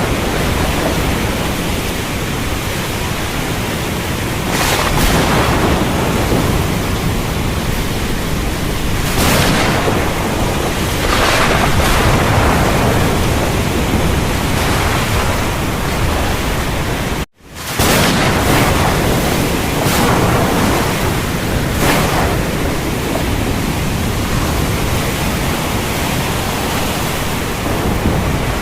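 Heavy rainstorm: dense, steady rain noise with a deep low rumble underneath and several brief swells that come and go. The sound drops out abruptly for a split second about two-thirds of the way through, then resumes.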